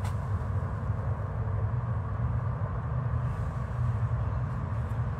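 Wind buffeting a phone's microphone outdoors: a steady, fluttering low rumble with a faint hum above it.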